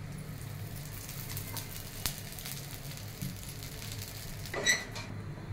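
Millet dosa frying in a hot pan, the oil drizzled around it sizzling steadily with scattered small crackles.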